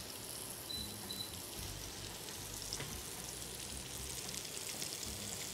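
Whole button mushrooms sizzling in oil in a frying pan over high heat, a steady, even sizzle; they are browned and nearly done.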